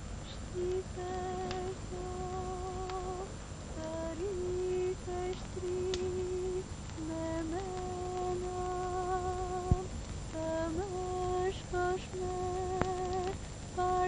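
A voice humming a slow, wordless tune in held notes with vibrato, sliding up into some notes, with short breaks between phrases.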